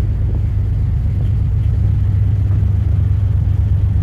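High-speed ferry under way at speed: a loud, steady low rumble of its engines and churning wake.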